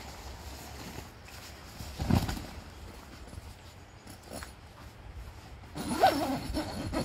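Tent fabric handled as a pop-up hub tent is taken down, with a low thump about two seconds in and an animal calling near the end, the loudest sound.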